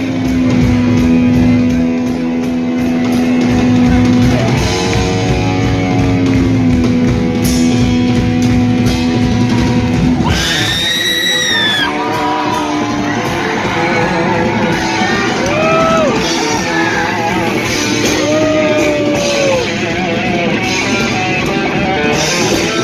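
Live heavy metal band playing: distorted electric guitar holding long notes, then bent, wavering notes from about ten seconds in, over bass and drums, in a large room.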